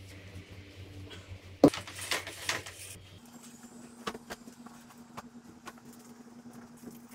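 A sharp knock about a second and a half in, followed by about a second of fabric rustling, over a low steady room hum. After that, only the hum and a few faint clicks.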